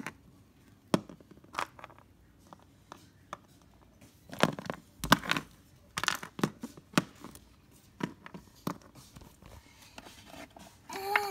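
Irregular light clicks, knocks and rustles of handling, with the busiest stretch around the middle.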